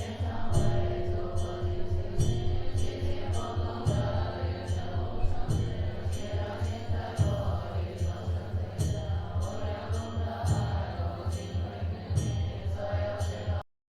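Buddhist nuns chanting a mantra together in a steady, repetitive cadence, with a regular tapping beat. The chant cuts off abruptly just before the end.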